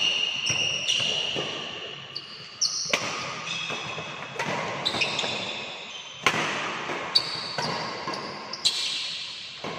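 Badminton rally with a Li-Ning Windstorm 72 racket: sharp smacks of racket on shuttlecock about every one to two seconds, with short high squeaks of court shoes between the hits.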